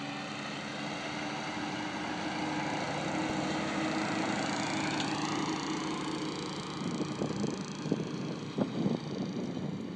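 Excavator's diesel engine running, its pitch rising slightly about halfway, with irregular knocks and clatter in the last few seconds.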